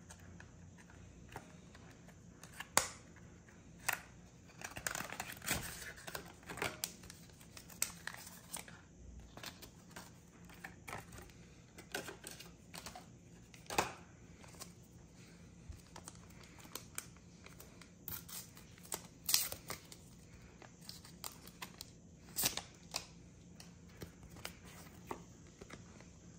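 A Pokémon trading-card pack being opened and its cards handled and set down: rustling and crinkling of the wrapper, with scattered sharp clicks and taps.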